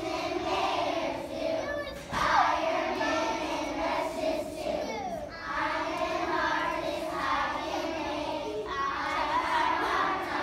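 A group of young children singing together, in phrases broken by short pauses every few seconds.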